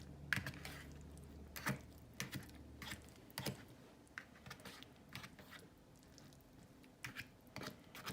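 Faint, irregular clicks and scrapes of a utensil stirring pasta and vegetables in a frozen-meal bowl. A low steady hum runs underneath and stops about three seconds in.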